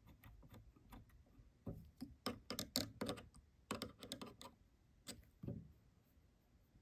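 Faint, irregular metal clicks and taps as a presser foot is fitted onto a Juki TL18 sewing machine's presser bar and its screw is tightened with a screwdriver.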